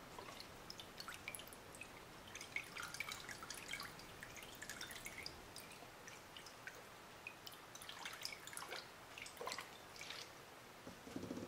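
Faint, scattered drips and trickles of alcohol as it is flushed over and runs off a circuit board during a rinse.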